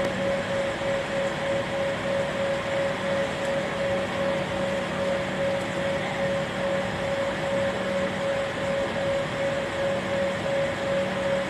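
Jet airliner cabin noise: the engines running at low power and the cabin air system, a steady whine over an even rumble, heard from inside the cabin while the plane taxis on the runway before take-off.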